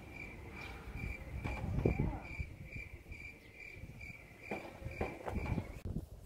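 Cricket chirping steadily, a short high chirp about two to three times a second, stopping near the end, with faint rustling and brief murmurs beneath.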